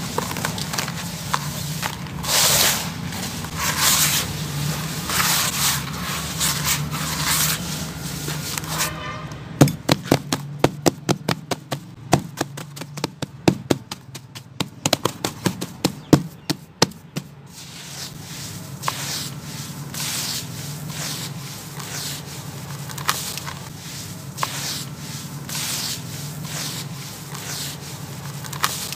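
Hands crumbling and rubbing dry sand-cement chunks: repeated gritty swishes. A stretch of sharp, quick crackling snaps comes about a third of the way in and lasts several seconds.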